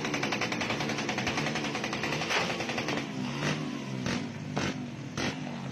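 Rusi Korak 110cc motorcycle engine on an open pipe, revving with a rapid crackling exhaust. About halfway through, the revs rise and fall repeatedly, with sharp backfire pops roughly every half second.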